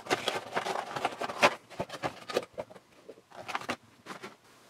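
Funko Pop cardboard box and its plastic insert being handled and opened: a quick run of rustles, scrapes and crinkles, busiest in the first two and a half seconds, then a few scattered clicks and taps.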